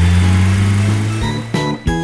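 A cartoon monster truck's engine sound effect runs with a steady low hum and fades as the truck drives off, under background music. About one and a half seconds in, music with short plucked notes takes over.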